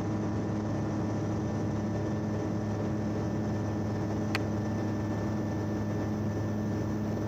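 Light aircraft's piston engine and propeller running steadily at climb power, heard from inside the cockpit as an even drone, with one faint click about four seconds in.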